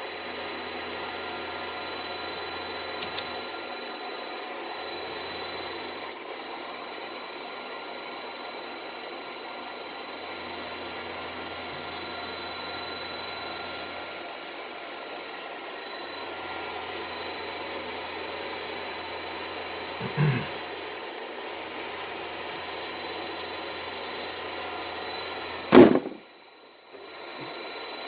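Gamewell E3 voice evacuation system sounding through its speakers on a miswired Class A circuit: a steady rushing noise with a high steady tone over it, the "data sound" of the wrongly wired system. Two knocks from the wiring work, the louder one near the end, after which the noise cuts out for about a second and a half before returning.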